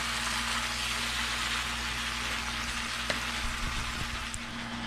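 Sliced squash and mushrooms sizzling in a hot frying pan as they are stirred, a steady hiss, with a light click about three seconds in.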